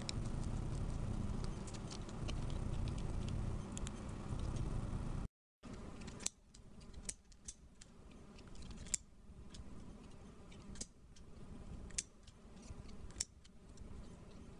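Low steady rumble for about five seconds, then after a brief break, light handling of a small thin metal strip with about six sharp clicks.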